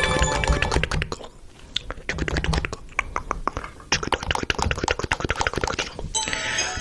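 A cartoon sound effect: a fast, irregular run of sharp clicks and clinks. Music plays at the start, breaks off about a second in, and comes back near the end.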